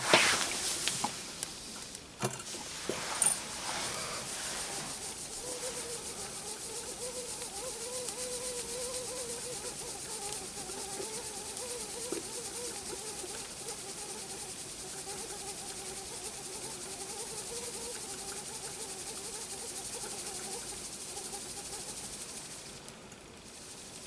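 Steam hissing from the jets of a small homemade brass Heron's aeolipile (steam ball), with a faint wavering whistle from about five seconds in that fades out near the end. A few sharp knocks come in the first few seconds. The ball is struggling to get going, which the maker puts down to the slightest tightness of its pivot screw.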